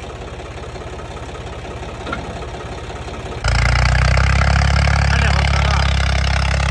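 Tractor diesel engine idling with a steady beat. About three and a half seconds in, it switches abruptly to a much louder engine running hard at steady high revs.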